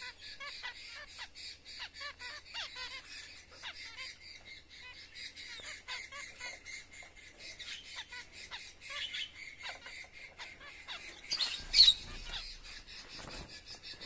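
A flock of zebra finches chirping without a break in quick, short calls from several birds at once. A little before the end, one brief, louder burst of sound stands out above the chirping.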